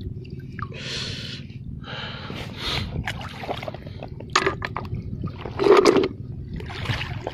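Clam shells clicking together and dropping into a plastic bucket, with several short clicks and the loudest clatter about six seconds in. Close breathing and a steady low rumble run underneath.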